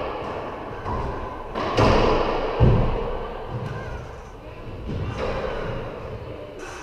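Racquetball being played: sharp smacks of racquets hitting the ball and the ball striking the court walls, each ringing out in the bare enclosed court. A handful of hits at uneven spacing, the loudest about two and a half seconds in.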